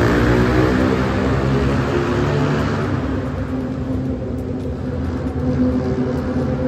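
Several motorcycles running along the road below, with engines loud at first and fading about three seconds in, while a steady engine note carries on.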